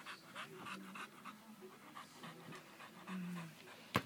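A dog panting, quick breaths repeating several times a second. Near the end there is a single sharp click.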